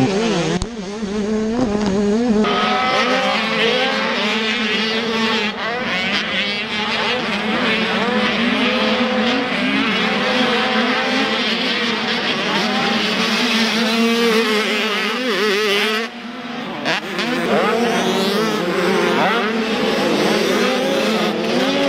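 Several motocross dirt bikes racing, their engines revving up and down with the throttle in overlapping pitches. The sound drops briefly about two-thirds through, then picks up again.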